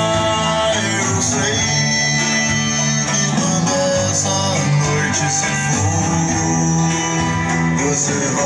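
A recorded song in a guitar-led instrumental passage, played back loud through Magnum 200 W RMS passive PA speakers.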